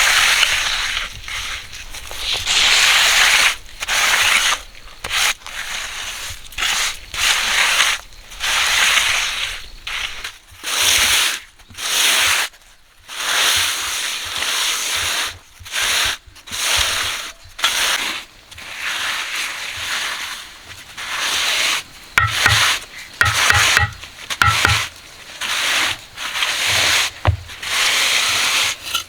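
Repeated gritty scraping strokes, about one a second, as of a hand tool working over a rough, gritty surface, with a few dull knocks near the end.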